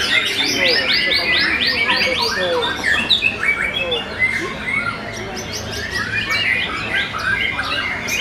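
White-rumped shamas singing all at once, their songs overlapping in a dense chorus of whistles, chirps and trills. A fast run of repeated high notes is heard in the first two seconds.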